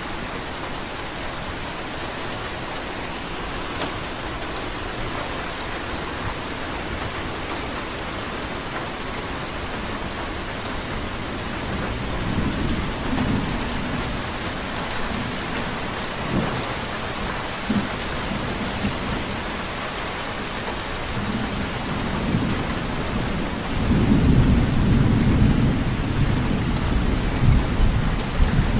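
Steady rainfall hiss. A low rumble builds under it about halfway through and grows much louder near the end.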